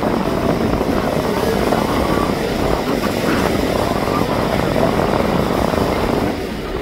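Aircraft engine noise, steady and loud throughout.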